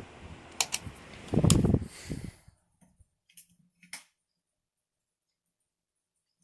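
Steady whoosh of electric table fans running, with a few sharp clicks and a low thump about a second and a half in. The fan noise cuts off suddenly a little after two seconds, leaving near silence broken by a few faint clicks.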